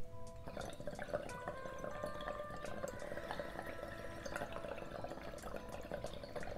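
Water bubbling and gurgling in a glass dab rig as a dab of hash rosin is inhaled through it, a rapid crackling burble that starts about half a second in and keeps on steadily.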